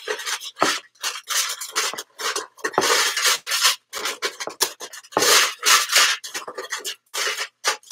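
A handful of coloured craft sticks being stirred and rattled by hand in a metal pail, an irregular clatter and scraping as they are mixed up.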